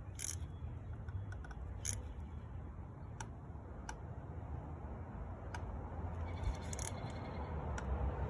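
Socket ratchet clicking as it tightens a new spark plug into the cylinder head: several sharp clicks spaced about a second apart, over a steady low background rumble.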